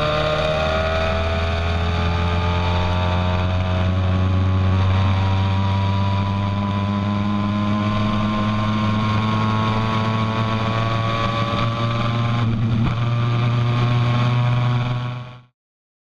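Caterham 1600 race car's four-cylinder engine running hard, heard onboard from the open cockpit over a steady rush of wind. The engine note dips a little over the first few seconds, then climbs slowly and steadily as the car pulls in one gear. The sound cuts off abruptly shortly before the end.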